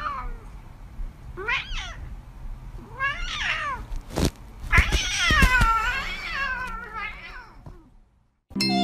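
Cat meowing repeatedly in short wavering calls, with one longer drawn-out meow about five seconds in. A single sharp knock comes just before it.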